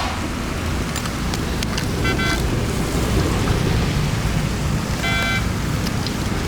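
Steady rushing noise of floodwater draining, with two short high-pitched beeps about three seconds apart.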